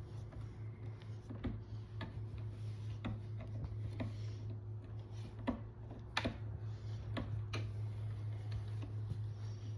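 Bar stool being assembled with T-handle hex wrenches: irregular clicks and taps, roughly one a second, the sharpest about six seconds in, over a steady low hum.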